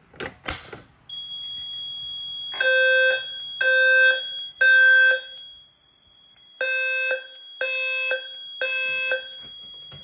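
Fire alarm speaker-strobe of a Notifier voice-evacuation system sounding the temporal-three evacuation tone: three half-second low, buzzy tones, a pause, then three more. A steady high-pitched tone runs underneath from about a second in, after a couple of clicks at the start.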